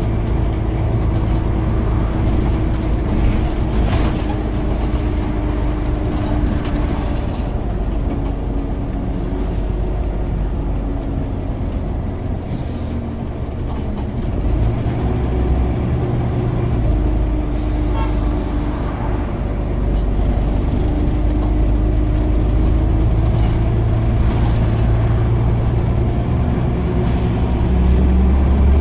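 Scania OmniCity bus's diesel engine running as the bus drives along, heard from inside the saloon: a steady low hum whose note rises and falls with the gear changes, a few rattles and clicks, and a louder pull near the end.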